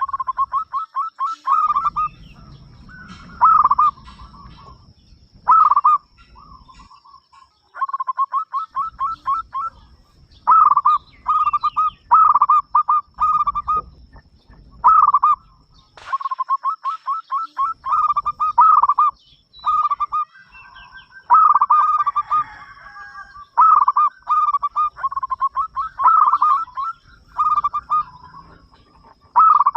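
Zebra dove (perkutut) cooing: runs of quick stuttering notes ending in longer, stronger coos, repeated phrase after phrase with short pauses.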